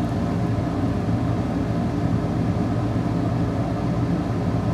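A steady low mechanical hum, even throughout with no change.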